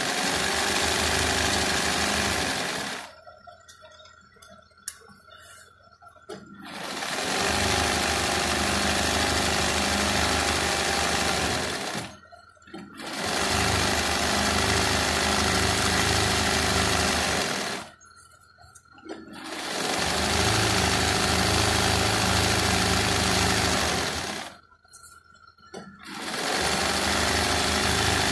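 Sewing machine doing hand-guided embroidery, running in stretches of a few seconds. It stops four times for a second or more and speeds back up at each restart.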